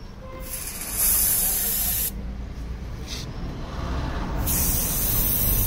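Aerosol wound spray hissing from a can onto a dog's open wound, in two bursts: the first and louder one lasts about a second and a half, and the second starts about four and a half seconds in.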